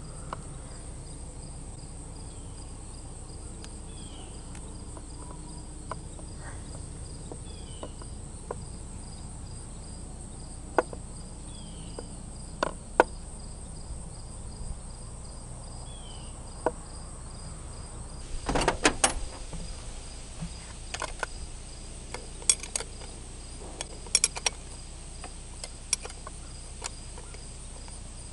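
Small metal clicks and knocks from a carburetor being fitted by hand onto a Yamaha T8 outboard engine's intake, single clicks at first, then a rattling cluster about two-thirds through and a few more ticks after. A steady high-pitched insect buzz runs underneath.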